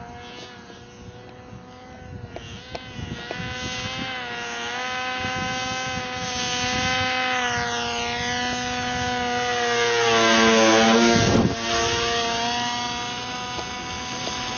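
Electric motor and propeller of a radio-controlled model airplane, a steady whine in flight. It grows louder as the plane comes in low, is loudest as it passes close about eleven seconds in, and falls in pitch as it goes by.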